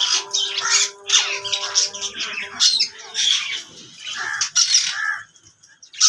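Alexandrine parakeets giving a quick series of harsh, screechy calls, with a pause of about a second near the end.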